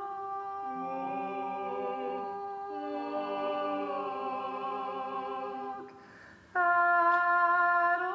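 Men's voices singing held chords in close harmony with no clear instruments, the chords shifting every second or so. About six seconds in they break off briefly, then come back with a louder sustained chord.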